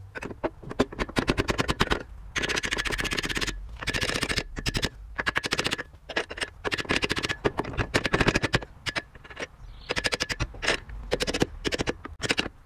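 Hand ratchet wrench clicking in quick runs of many fast clicks, with short pauses between strokes, as a bolt on the trailer's leaf-spring perch bracket is worked.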